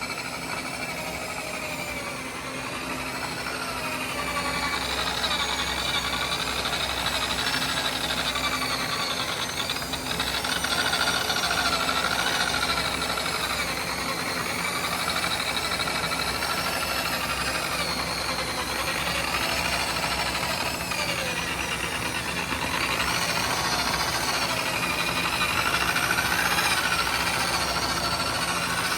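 Electric rotary polisher running with a wool buffing pad against a plastic headlight lens; its motor whine rises and falls in pitch as the pad works.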